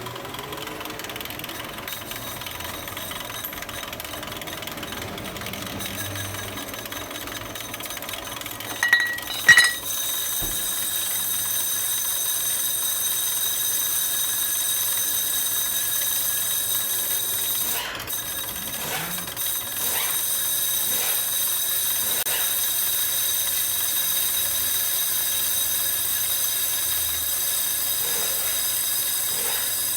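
A steady machine sound with a high, ringing tone, as a front brake disc is polished. It grows louder about ten seconds in. Short clicks come around then and again near eighteen to twenty seconds.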